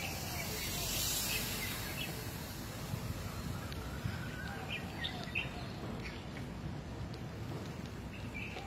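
Steady outdoor noise of riding a bicycle on a paved path: wind on the phone's microphone and tyre rumble, swelling briefly about a second in. A few short high chirps come through in the middle.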